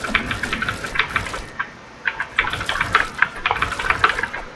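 Rapid computer-keyboard typing: a dense run of key clicks, with a brief pause about two seconds in.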